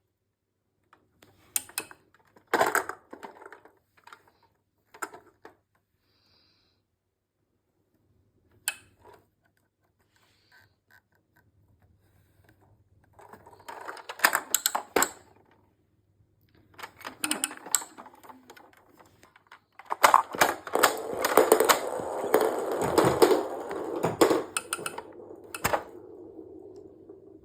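Hard plastic toy pieces clicking and clattering as the toy is handled: a few separate clicks at first, then a longer run of dense rattling with a faint steady hum under it near the end.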